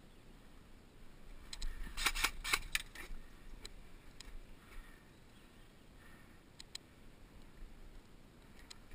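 Airsoft guns firing: sharp, faint snapping shots, a quick string of about six about two seconds in, then a few single shots and a pair later on.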